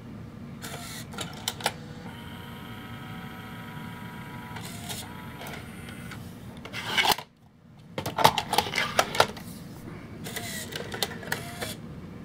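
Bose Lifestyle 20 music center's CD mechanism loading and spinning up a disc: a steady motor whine for a few seconds, then bunches of mechanical clicks and clunks in the second half.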